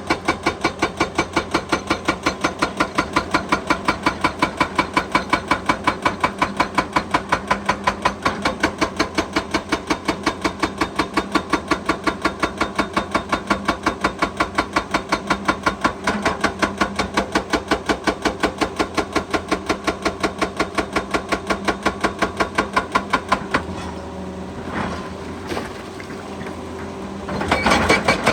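Hydraulic breaker hammer on an excavator pounding in rapid, evenly spaced blows over the running engine. The blows stop for about four seconds near the end, then start again.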